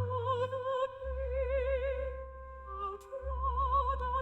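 Background music: a slow, sustained melody of long held notes with vibrato over a low drone, like a wordless female voice or bowed strings.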